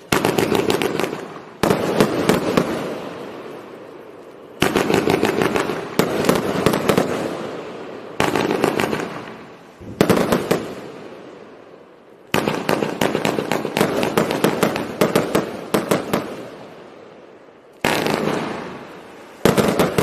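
An 82-shot 1.4G compound firework cake firing in volleys: each volley starts suddenly with a rapid run of sharp cracks and bursts that thin out and fade over a few seconds, about eight volleys in all.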